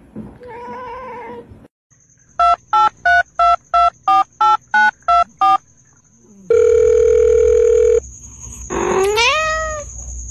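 A short cat meow, then ten telephone keypad beeps dialled at about three a second, then a steady telephone tone lasting about a second and a half. A cat gives a rising meow near the end.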